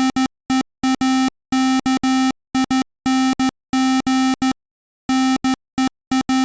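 Morse code tones from a Circuit Playground Bluefruit working as a USB Morse code key, sending a pre-programmed message: one low, buzzy beep keyed on and off in quick short dits and longer dahs, with silent gaps between letters.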